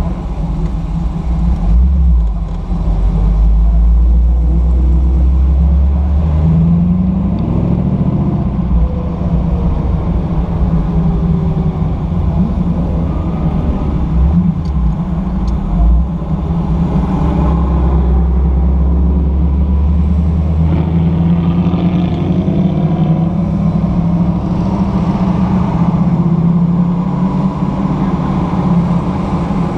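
Sunbeam Tiger's Ford V8 engine running at a steady cruise, heard from on board, its note rising briefly about seven seconds in as it accelerates. A deep low rumble swells and fades twice underneath.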